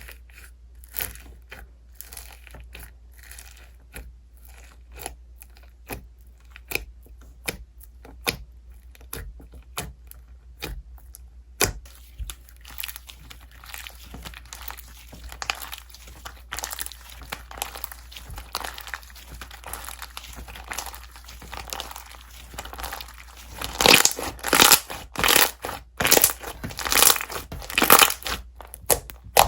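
Slime being squeezed and worked by hand, giving many short sharp pops and crinkly crackles that grow louder and come thicker near the end.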